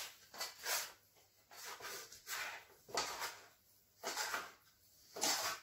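Bread dough being worked out of a stainless steel mixing bowl by hand onto a floured board: a string of about seven short scraping and rubbing sounds at uneven intervals.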